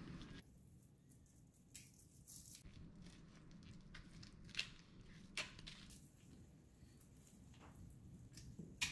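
Kitchen shears snipping through a walleye's fins and head bones: a few faint, sharp clicks a second or more apart.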